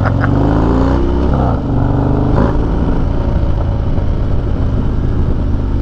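Harley-Davidson Dyna V-twin through a Bassani Road Rage exhaust, accelerating away from a stop. Its pitch rises for about a second and a half, dips briefly, then runs on more steadily, with a short click about two and a half seconds in.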